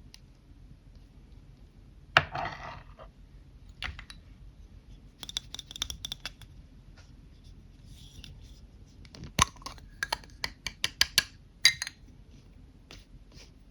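Lipstick tubes and caps being handled: a series of sharp clicks and light clinks. There is one loud click with a brief rustle about two seconds in, a few light clicks midway, and a quick run of about a dozen clicks in the last few seconds.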